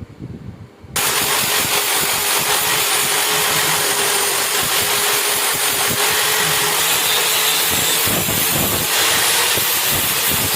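Power tool abrading a rusty steel knife blade: a steady harsh grinding noise with a faint steady whine, starting abruptly about a second in and cutting off abruptly at the end.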